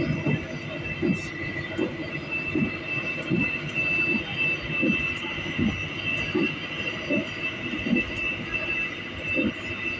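Taksaka express train running at speed, heard inside the passenger carriage: a steady high whine over a regular low clack of the wheels on the track, about once every three-quarters of a second.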